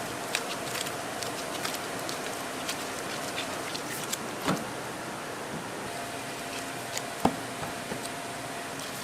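Kitchen work sounds over a steady background noise: scattered light clicks and knocks of utensils and handling, with two sharper knocks about four and a half and seven seconds in, and a faint hum that comes and goes.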